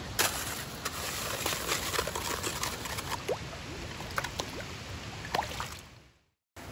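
Dishes being washed in a stream: a plastic plate scrubbed with snow and swished and dipped in the flowing water, with scraping, clicks and splashing over the steady rush of the stream. The sound fades out to silence near the end.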